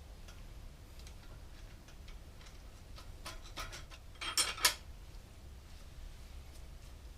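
Light metallic clicks and clinks of tools and headset parts being handled, with a quick cluster of sharper clinks about four and a half seconds in.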